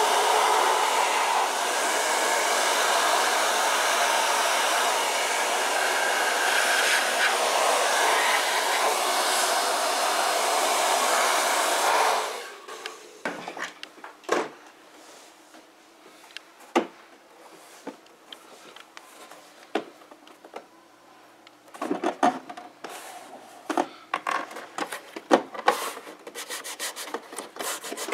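Handheld hair dryer blowing steadily, cutting off about twelve seconds in. Then leather being rubbed and smoothed by hand over a door panel, with scattered light taps and rustles that grow busier near the end.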